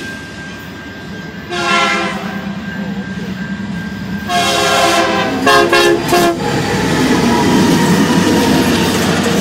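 Diesel freight locomotive's air horn sounding a long chord, then another long blast and a few quick shorter blasts, as the train approaches. About two-thirds in, the locomotives pass close by with a steady loud noise of engines and wheels on the rails.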